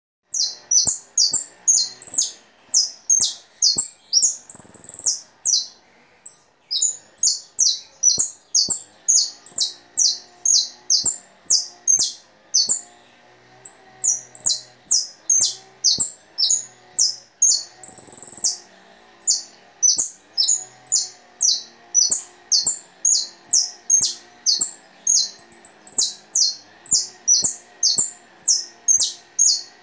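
Songbird singing a long, steady series of short, high, downward-sweeping notes at about two a second, pausing briefly twice and twice stretching into a longer drawn-out note. This is a tutor song ("maestro") for young birds to learn from.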